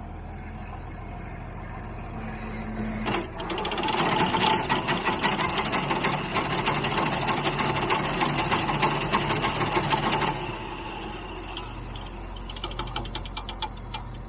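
Gehl 2365 mower conditioner run on a John Deere tractor's PTO: a loud, dense mechanical clatter of rapid clicks starts about three seconds in and stops about seven seconds later, with lighter clattering again near the end. Under it the tractor engine idles steadily.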